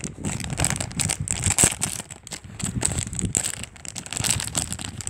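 Clear plastic toy packaging crinkling as hands grip and pull at it, a dense run of irregular crackles.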